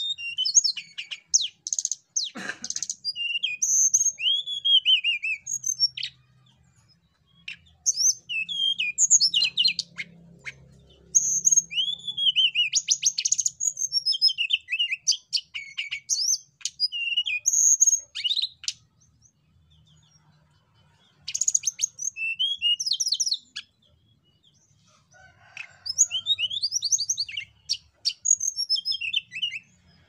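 Hill blue flycatcher (tledekan gunung) singing in bouts of a few seconds. Its song mixes rapid high trills with clear whistled notes sliding downward, with short silent pauses between phrases.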